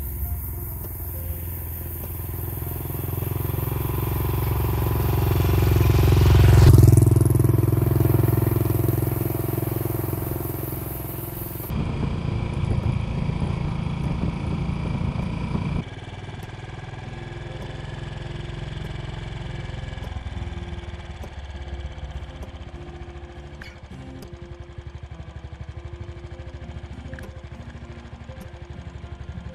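Royal Enfield Bullet 500 single-cylinder motorcycle approaching and passing close by, loudest about seven seconds in and dropping in pitch as it goes past. It is then heard running under way from the rider's seat, and later more quietly as it rides along.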